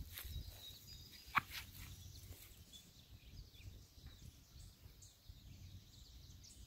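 Faint outdoor ambience: a low wind rumble with scattered faint bird chirps. A single sharp click comes about a second and a half in.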